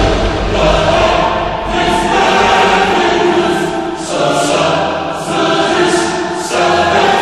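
Choral music: a choir singing long held notes, the chord changing every second or so.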